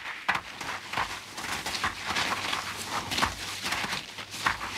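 A herd of caribou galloping over snow: many hooves pounding in a rapid, irregular patter.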